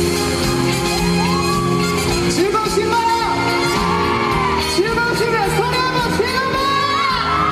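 Instrumental intro of a trot song's backing track playing over loudspeakers, its melody line bending and gliding in pitch, with voices shouting over it.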